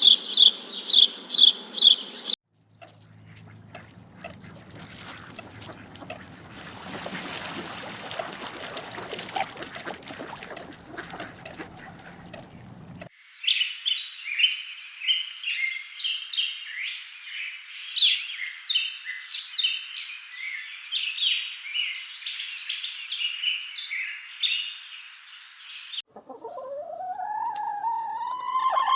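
Countryside birdsong in spliced segments. First a bird gives rapid, evenly repeated chirps, which break off abruptly about two seconds in. A steady rushing hiss with a low hum follows, then many small birds chirp together, and near the end a rising call begins that leads into a rooster crowing.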